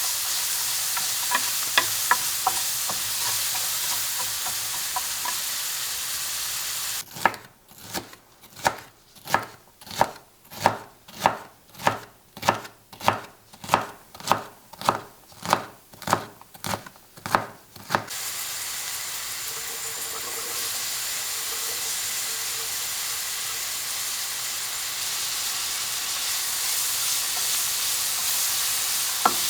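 Steady sizzling hiss of food cooking in a pan, broken in the middle by a kitchen knife chopping on a cutting board: about eighteen even strokes, a little under two a second. Then the sizzling picks up again.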